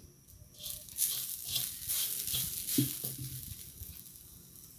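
Grated coconut tipped into a hot clay pot and stirred with a wooden spatula, a dry sizzling scrape that swells about a second in and fades over the last second or so. There is one light knock near the middle.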